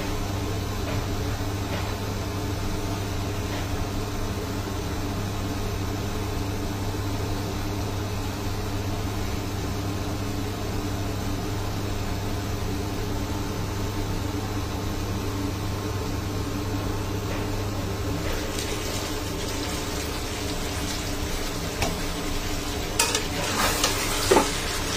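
Okra and potatoes sizzling under a glass lid in a pan, with a steady low hum that stops about three quarters of the way through. Near the end the lid comes off and a metal spatula scrapes and knocks against the pan as the vegetables are stirred.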